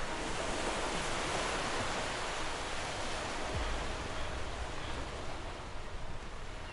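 Ocean surf: a steady hiss of waves washing, fuller in the first couple of seconds and easing off toward the end.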